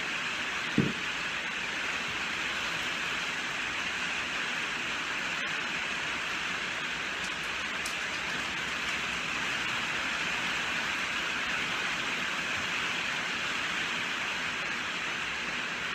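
Steady rainfall, an even hiss with no single drops standing out, and one short low thump about a second in.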